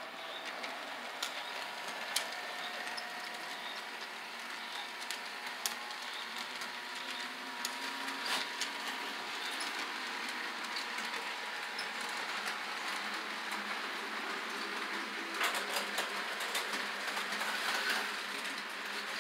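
Model freight train running on the layout's track: a steady hiss of wheels rolling on rail with a faint thin whine, broken by scattered sharp clicks, with a brief flurry of clicks near the end.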